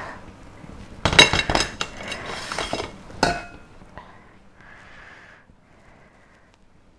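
Metal strainer knocking and clattering against the steel worktop and bowl as grated potato is tapped out of it: a quick run of sharp, ringing clanks over about two seconds, with a last loud clank near the middle. Then soft rustling of a cotton tea towel being folded over the potato.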